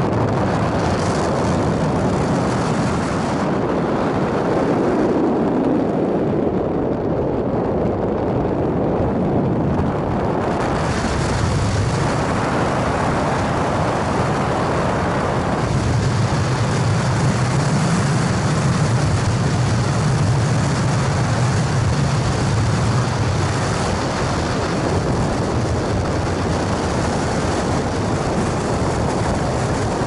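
Strong headwind blasting over the bow of a high-speed catamaran ferry at about 24 knots and buffeting the microphone, mixed with the ferry's engine noise and the wash of waves: a loud, steady rush with a low rumble beneath. About four seconds in the hiss dulls for several seconds, and from about sixteen seconds the low rumble grows stronger.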